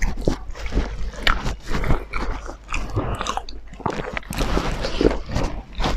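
Close-miked chewing of two people eating rice and pork curry with their hands: a steady run of irregular wet smacks and crunches.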